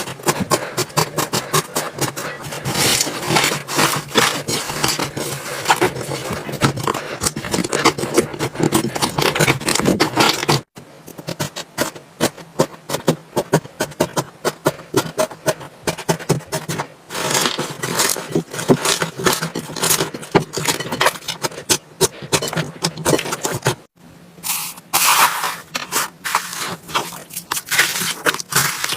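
Slime being handled, a dense run of small crackling pops and clicks, broken twice by a sudden brief drop-out.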